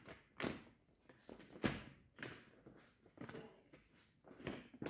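Several knocks and thumps at uneven intervals, about five, close to the microphone.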